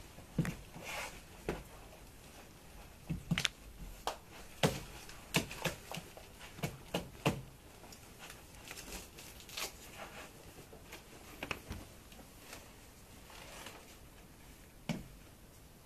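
Irregular knocks, taps and scuffs as a child puts on her shoes on a bench, with a quick run of sharper taps a few seconds in and one more knock near the end.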